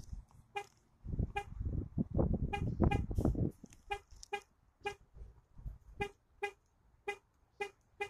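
2015 Chevrolet Cruze's horn chirping in short toots, roughly two a second, as its key-fob alarm or lock button is pressed over and over. From about a second in, a low rumbling noise runs for some two seconds under the toots and is louder than them.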